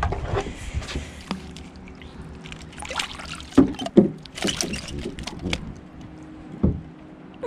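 Splashing and knocking as an oyster toadfish is reeled up beside a small boat, clamped with a lip-grip tool and lifted out of the water. A faint steady low hum runs underneath.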